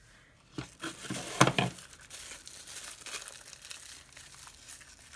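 Packaging crinkling and rustling as a vacuum attachment is handled and unwrapped by hand. There is a cluster of sharp crackles from about half a second to two seconds in, then a softer rustle.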